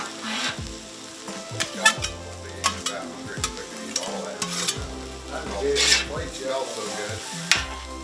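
Metal spatulas scraping, tapping and stirring fried rice across a hot flat-top griddle while the food sizzles, with a sharp scrape or clack every second or so.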